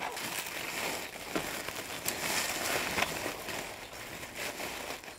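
A person rummaging by hand at ground level: steady rustling with scattered crackles and light clicks, which cut off suddenly near the end.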